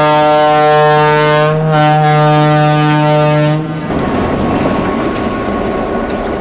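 Diesel switcher locomotive's air horn sounding a loud, steady blast with a brief break just under two seconds in, stopping about three and a half seconds in. After it, the rumble of boxcars rolling past on the rails.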